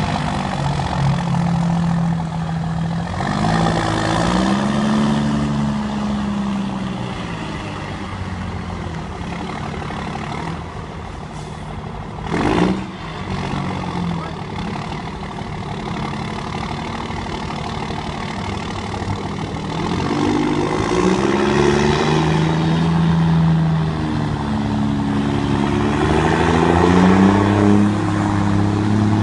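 Volkswagen Constellation truck's diesel engine roaring loudly, revved up and down several times. There is a short sharp hiss near the middle.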